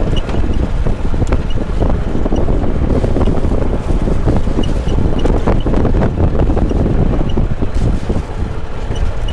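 Wind blowing across the microphone of a passenger riding in an open-sided shuttle cart, over the steady rumble of the cart driving on a rough dirt track.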